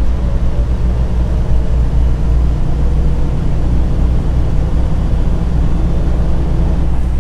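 Semi truck's diesel engine running steadily while driving, a loud, even low rumble heard from inside the cab.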